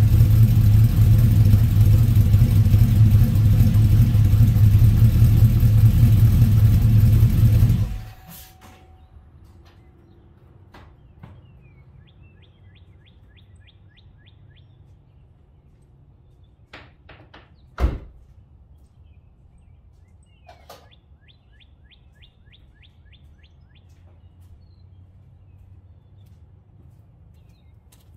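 Trailblazer SS's LS2 V8, fitted with a Texas Speed 224R camshaft, running steadily through its dual exhaust, then shut off about eight seconds in. Afterwards birds chirp in two quick trills, with a single thump near the middle.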